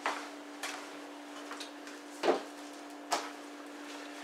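A few short, scattered knocks and clicks, the loudest about two seconds in, from someone moving about and handling things out of view, over a steady low hum.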